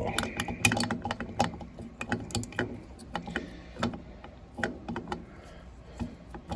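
Irregular metal clicks and clinks of hand tools and engine parts being handled during an ATV top-end rebuild.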